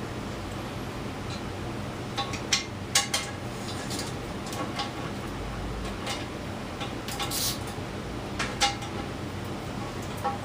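Scattered metallic clicks and clinks of a hand tool working the intake manifold bolts as they are snugged down, with a short run of quick clicks about seven seconds in, over a steady low hum.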